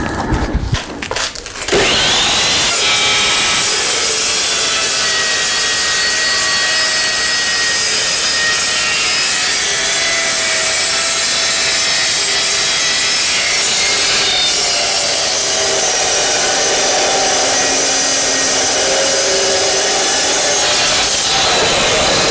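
Evolution Rage 2 carbide-tipped multipurpose chop saw cutting through square steel tubing: a loud, steady cutting noise with ringing whines from the blade, starting about two seconds in after a few knocks.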